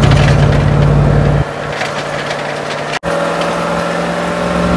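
The 351 Cleveland V8 of a 1978 Ford F350 tow truck running under acceleration, heard from inside the cab. About a second and a half in, the low engine note drops away. Near three seconds in the sound cuts out for an instant and comes back with a different, higher engine note.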